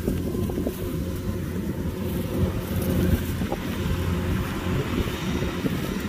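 Kubota DC-105X combine harvester running steadily, its diesel engine giving a steady low drone.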